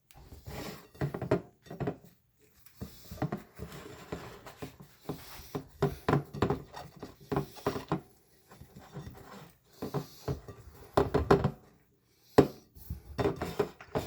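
Kitchen clatter: an irregular run of knocks and clatters as dishes and utensils are handled, with a sharp knock near the end.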